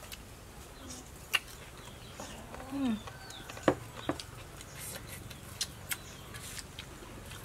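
Quiet eating sounds: a handful of sharp clicks of spoons against small glass bowls, with a short low voiced sound about two and a half seconds in and faint bird chirps.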